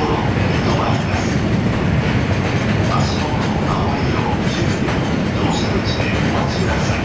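A freight train of gasoline tank wagons passing, its steel wheels rumbling steadily on the rails.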